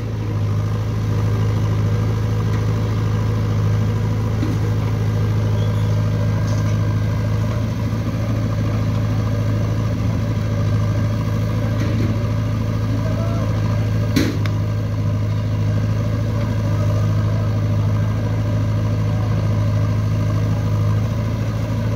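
Steady diesel engine drone from a working backhoe loader and an idling tractor, with one sharp knock about fourteen seconds in.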